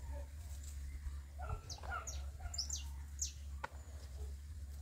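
Backyard poultry and small birds calling: a quick run of high, falling chirps from about one and a half to three and a half seconds in, over lower short clucking calls.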